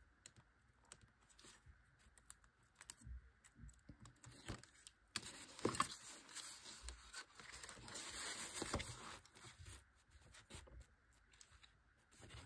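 Kraft cardstock pieces being handled: faint rustling, scraping and light taps of stiff paper sliding on the table and being pressed together, busiest in the middle of the stretch.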